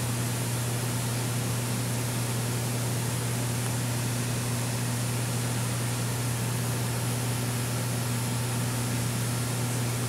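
Steady low electrical hum over an even hiss: the running pumps and water circulation of a reef aquarium.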